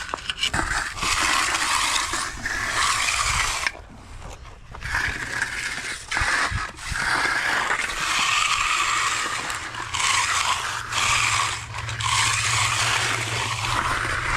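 A hand finishing tool scraping and rasping over fresh concrete in long strokes, with short breaks between them. A low steady hum comes in about halfway through.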